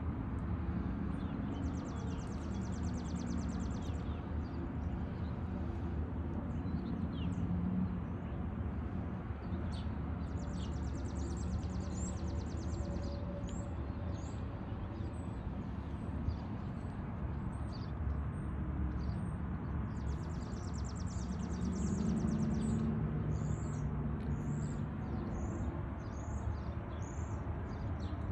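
Small songbirds calling outdoors: short high chirps throughout and a rapid trill that comes three times, over a steady low rumble of background noise.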